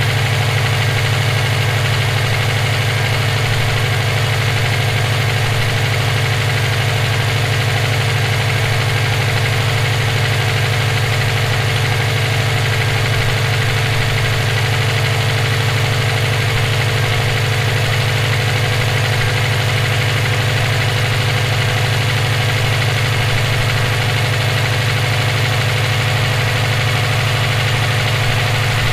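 Subaru EJ257 turbocharged 2.5-litre flat-four idling steadily with the nasty noise its owner cannot place, which he suspects may be rod knock from a spun bearing or valve lash needing adjustment.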